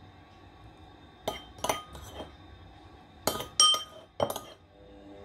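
A spoon clinking against dishware as a thick sauce is spooned and knocked off it, about half a dozen sharp, ringing clinks in small groups.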